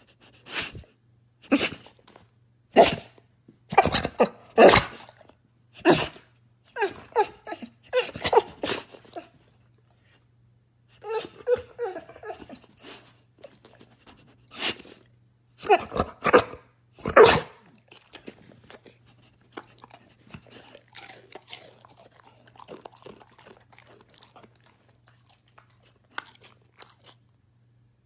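A dog barking repeatedly in short, sharp barks at irregular intervals, pausing about ten seconds in, then a second run of loud barks, fading to fainter ones near the end. A faint steady hum lies underneath.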